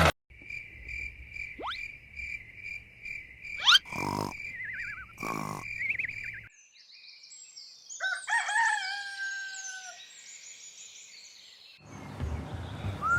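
Edited-in sound effects. A high, pulsing beep runs for about six seconds, with two rising whooshes and two sharp hits over it. Then come a few drawn-out, falling bird-like calls about two seconds long.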